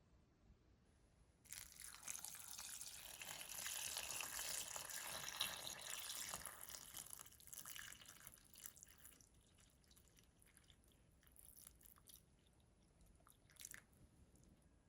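Water poured into a pot of simmer pot ingredients: a steady splashing hiss starts suddenly, runs about six seconds and tails off, followed by a few scattered drips and small ticks.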